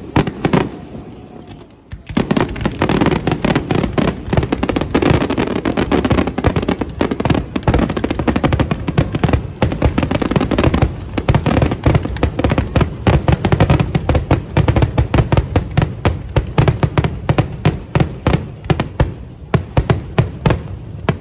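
Fireworks going off: one big bang, then after a brief lull a dense, rapid barrage of overlapping bangs and crackles. The bangs thin out into separate reports near the end.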